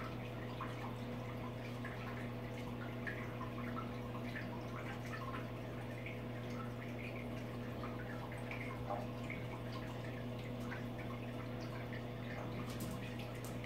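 Aquarium filter running: water trickling and dripping into the tank over a steady low hum from the pump motor. A few light clicks come near the end.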